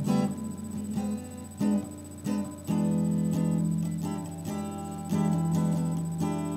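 Electric guitar played with a pick: short picked notes at first, then notes and chords left to ring, held for a couple of seconds at a time from about three seconds in.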